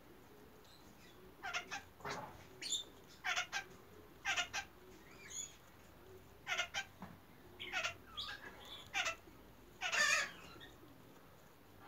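Chattering lories giving a series of short, high-pitched calls, often in quick pairs, with the loudest one near the end.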